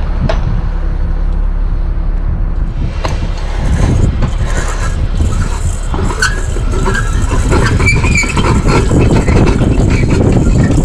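Bucket truck's engine running with a steady low rumble, with a hum in the first few seconds while the bucket is positioned. From about four seconds in, clicks, scraping and squeaks as a stadium floodlight bulb is gripped and turned in its socket.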